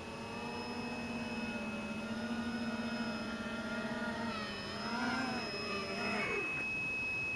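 Electric motor of an FPV model aircraft running at a steady pitch, wavering up and down about four and a half seconds in, then spinning down quickly and stopping about six and a half seconds in. A steady high whine goes on after it.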